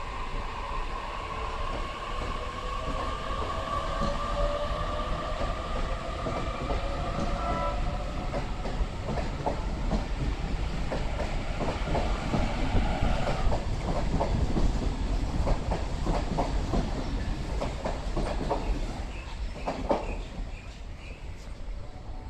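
Sydney Trains Waratah double-deck electric train pulling out and running past, with a whine from its electric drive that sinks slightly in pitch over the first several seconds. From about nine seconds in, its wheels clack and knock over rail joints and pointwork, with one heavier knock near the end.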